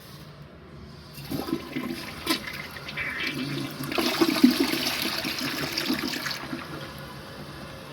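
Toilet flushing: a few knocks and clicks about a second in, then water rushing loudly through the bowl, dying down to a quieter hiss after about six seconds.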